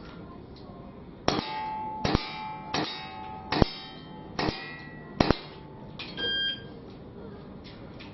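Six revolver shots fired at a steady pace over about four seconds, each with a ringing metallic clang. Near the end a shot timer's buzzer sounds once, marking the end of the 7-second time limit.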